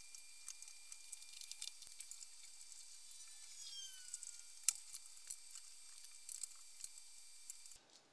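Faint handling sounds of a 3D-printed plastic part being fitted onto an aluminium extrusion frame: scattered small clicks and taps with a brief falling squeak, over a steady high hiss. The sharpest click comes about halfway through.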